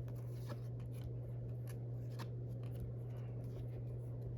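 Baseball trading cards being flipped through by hand, sliding against each other with faint scattered ticks, over a steady low hum.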